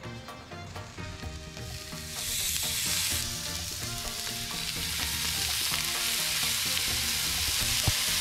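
Seasoned tuna steaks searing on a hot, oiled flat-top griddle at medium-high heat, sizzling loudly. The sizzle starts about two seconds in, swells a second later as more fish goes down, and then holds steady. A single sharp tick comes near the end.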